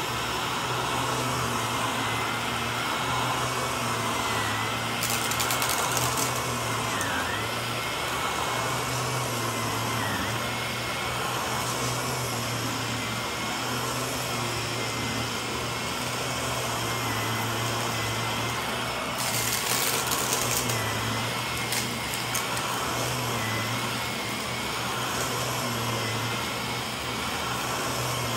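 Upright vacuum cleaner running steadily on a thick shag rug, its motor whine dipping briefly now and then as it is pushed. Bursts of crackling about five seconds in and again around nineteen seconds in, as grit is sucked up.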